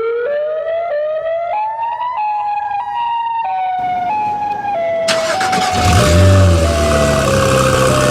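A siren wailing, its pitch climbing in small steps for about two seconds and then slowly stepping back down. About six seconds in, a car engine starts under it with a brief rise and settles into a steady idle.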